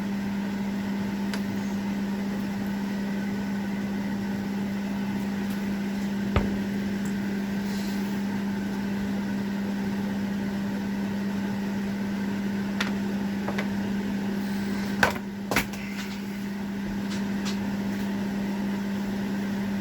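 A steady machine hum, with a few sharp clinks of a metal spoon against the cooking pot as corn is spooned in: one about six seconds in and two close together near the end.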